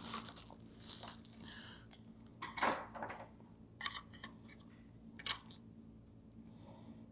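Faint handling noise of steel tweezers prying a copper heat pipe up from a phone's metal frame: a few light clicks and scrapes, the sharpest about five seconds in.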